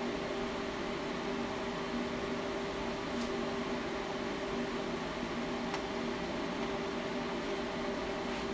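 Steady hum and whir of an AlphaTIG inverter welding machine switched on and idling, its cooling fan running, before the arc is struck. Two faint ticks about three and six seconds in.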